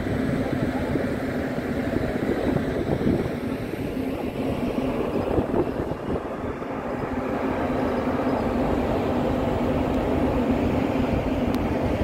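Steady engine rumble of a passenger ferry with a constant low hum, heard from the open deck with wind on the microphone.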